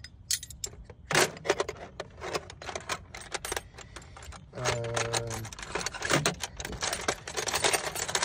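Steel machinist's tools clinking and rattling against each other and the metal drawer as they are rummaged through: a dense, uneven run of clicks and clinks, with a brief low hum about halfway through.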